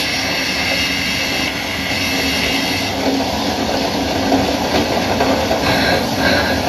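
Train running on rails, a continuous rumble with clickety-clack, from a Dolby test trailer's soundtrack played back through a soundbar.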